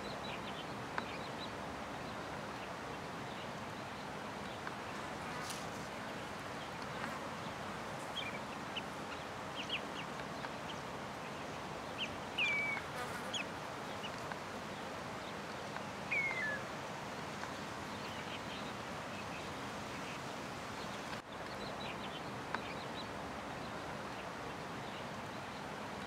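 Outdoor ambience: a steady hiss of background noise with scattered faint bird chirps, including two short downward-gliding calls near the middle.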